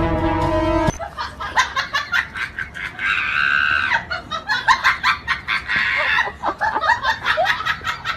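A short stretch of music cuts off about a second in. Then a husky vocalises in a string of short, bending yelps and cries, with one long high-pitched howl about three seconds in.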